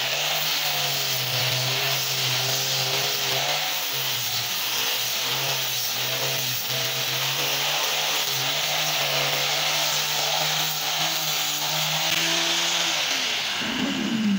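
Electric angle grinder with a sanding pad running steadily while it sands a carved wooden panel, its hum wavering a little as the pad works the wood. Near the end it is switched off and winds down with a falling pitch.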